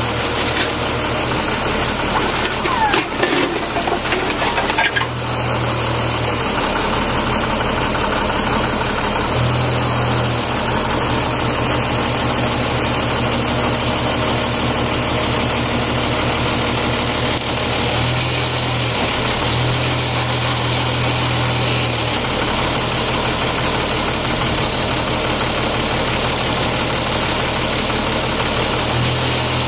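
Engine of the truck-mounted HIAB crane's hydraulic system running steadily as the clamshell grab is worked, with a deeper low hum switching in and out several times. In the first few seconds, brick and concrete rubble knocks and clatters in the grab.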